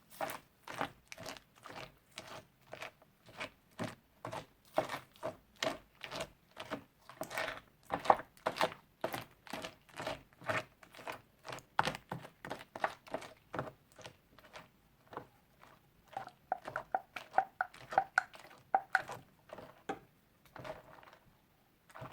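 Crunchy slime being squeezed and pressed by hand, crackling in regular strokes about twice a second, then a quicker run of crackles near the end.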